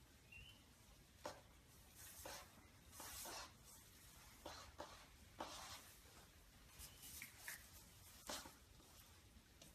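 Near silence with about ten faint, irregular rustles and scuffs: a tiger cub and a Yorkshire terrier puppy shifting about on a cloth blanket.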